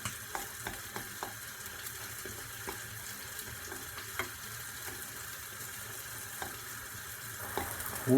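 Menemen of eggs, tomatoes and cheese sizzling steadily in a frying pan on the hob, with a few small pops here and there.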